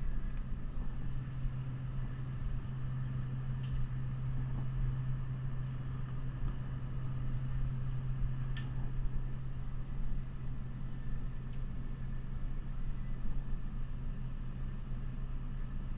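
Steady low hum of a walk-in dairy cooler's refrigeration fans, with a few faint clicks of egg cartons being handled.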